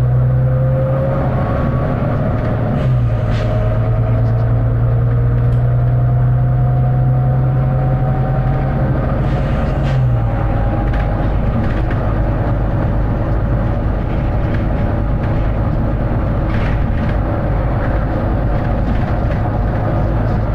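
Volvo B9TL double-decker bus's six-cylinder diesel running under way: a steady low drone that drops in pitch about three seconds in and again about ten seconds in, as it changes gear, with a faint whine slowly rising in pitch as it gathers speed.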